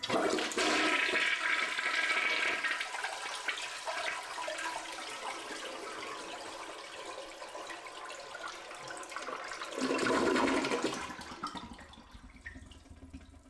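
A 30-year-old 3.5-gallon toilet flushing with its water supply shut off, the handle held so the whole tank drains into the bowl. The rush of water starts loud and slowly eases, surges again about ten seconds in, then dies away with no refill.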